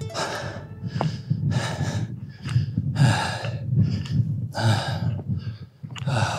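A person breathing hard and fast, about two heavy puffs of breath a second: out of breath from the steep climb to a mountain summit.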